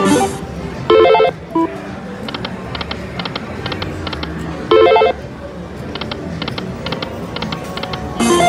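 Electronic sounds of a Lightning Link 'Wild Chuco' video slot machine: short, loud beeping chimes a moment in, about a second in, near five seconds and near the end, over a quieter, quick electronic ticking as the reels spin.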